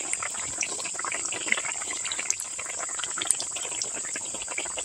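Atta-and-suji pua deep-frying in hot oil in a kadhai: a steady sizzle with dense small crackles.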